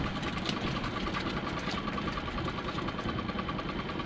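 Small fishing boat's engine idling steadily, with a faint regular ticking running through it.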